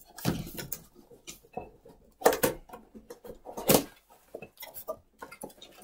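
Small cardboard box being handled and its flaps pried open: irregular scraping and rustling of the cardboard, with louder scrapes about two and a quarter and three and three-quarter seconds in.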